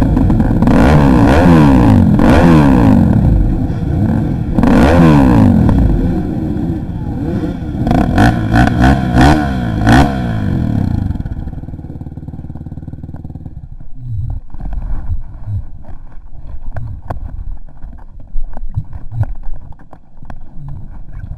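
Dirt bike engine revving up and down as it is ridden, with a run of quick throttle blips about eight to ten seconds in. About eleven seconds in the engine sound drops away sharply, leaving a much quieter stretch with scattered clicks.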